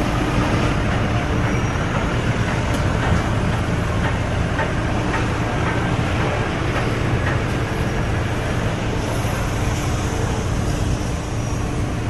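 GX216 drum wood chipper, driven by a 55 kW electric motor, running: a loud, steady mechanical hum with a constant tone over it and scattered short ticks and knocks.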